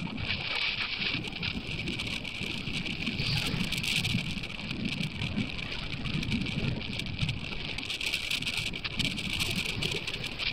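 Wind gusting on the microphone, with a low, uneven rumble, over the steady rush of surf breaking on a sandy beach.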